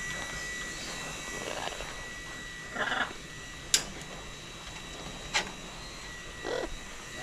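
Pet parrot making a few short calls, about three seconds in and again near the end, with two sharp clicks between them, over a steady high tone.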